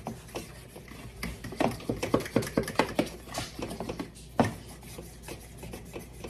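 A utensil stirring flour into thick mashed-banana batter in a mixing bowl: a run of quick soft taps and scrapes against the bowl, with one sharper knock about four and a half seconds in.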